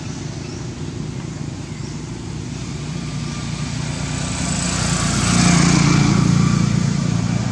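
A small motorbike engine running on the road, its steady hum growing louder from about halfway through as it comes closer.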